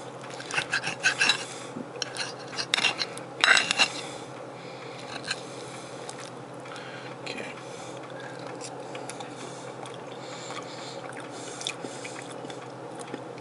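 Metal fork scraping and clinking against a ceramic plate while cutting through a fried egg, busiest in the first few seconds, then only a steady low hum.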